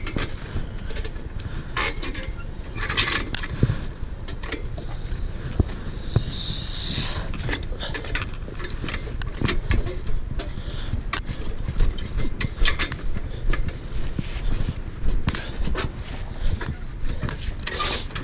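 Tire-changing work on a motorcycle wheel at a tire machine, as the bead is being broken: scattered metal clicks, knocks and scrapes over a steady low rumble, with a brief hiss about six seconds in.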